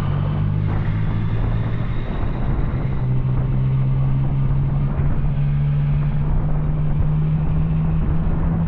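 Yamaha Tracer 900's three-cylinder engine with an Arrow exhaust running at a steady, constant engine speed while riding.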